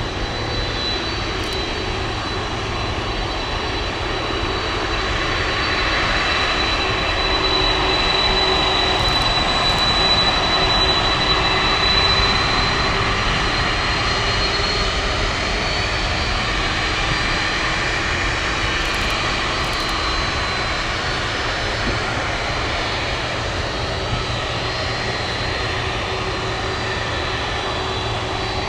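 Boeing 747-400 freighter's four jet engines at taxi power as it lines up for takeoff: a steady rumble with a thin high whine over it, a little louder about ten seconds in.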